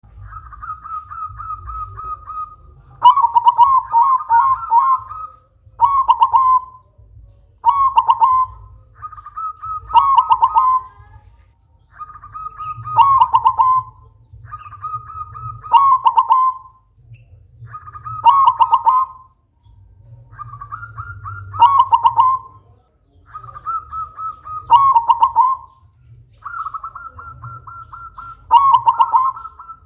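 Silver-morph zebra dove (perkutut) cooing: a loud song repeated about ten times, one phrase every two to three seconds, each a quick run of staccato notes that starts on a higher trill and drops to a lower cluster of notes.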